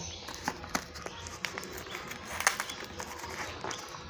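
Taped cardboard packaging handled and worked open by hand: irregular crackles, scrapes and taps of the cardboard and tape.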